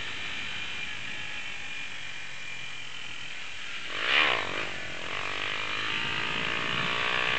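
Motorcycle engine running while riding, with wind noise. Its note dips and climbs again about four seconds in, then rises gradually near the end as the bike speeds up.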